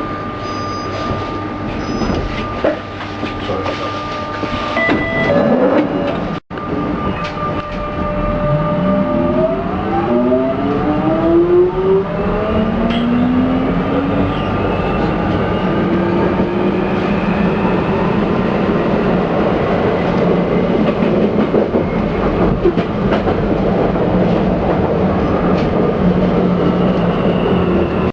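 London Underground 1996 stock train accelerating: the traction inverter and motors whine in several tones that climb steadily in pitch as speed builds, over the rumble of wheels on rail. A brief dropout about six seconds in.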